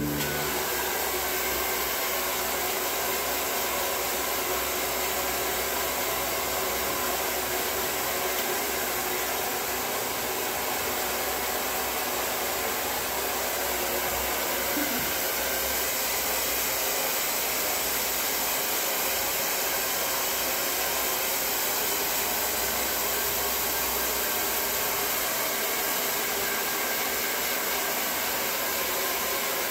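Handheld hair dryer blowing steadily on wet hair: an even, unbroken rushing noise.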